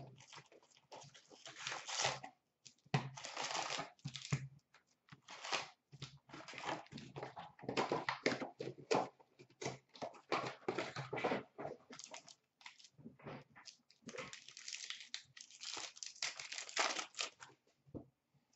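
Plastic wrap and foil card-pack wrappers being torn and crinkled by hand as boxes of hockey cards and their packs are opened, in irregular bursts with short gaps.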